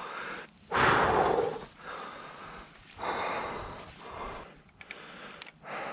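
A man breathing hard and out of breath from exertion, with about four loud exhales at uneven intervals of a second or so; the loudest comes about a second in.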